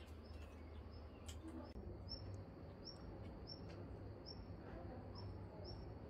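Faint outdoor ambience: a steady low rumble with a few scattered small clicks and short high bird chirps repeating about twice a second.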